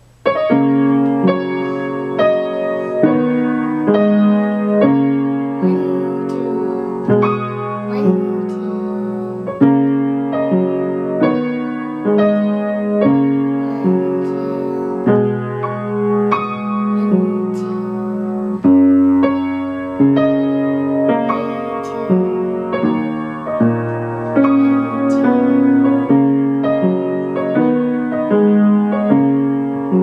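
Acoustic upright piano played as a four-hands duet by a child and a teacher: a simple piece in an even, steady pulse of single notes over repeated chords.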